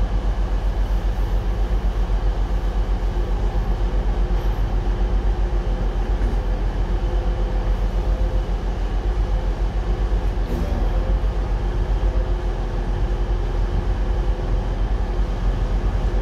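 A train's diesel engine idling steadily: a low, rapid pulsing with a steady hum above it.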